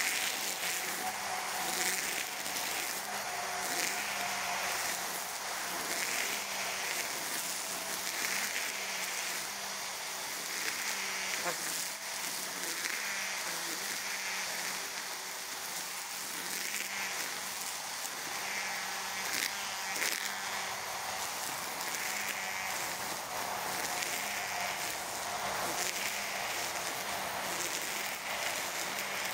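Cordless EGO Power+ brush cutter's electric motor running at a steady whine while its cutting head sweeps through thick grass. The cutting noise swells and fades every second or so with each sweep.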